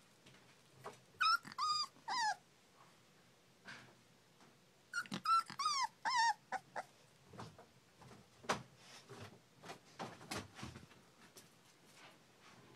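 Young puppies whining in two short bouts: about three high-pitched whines a second in, then about four more some five seconds in, several dropping in pitch at the end. Soft scuffling and light knocks follow as the puppies move about on a blanket.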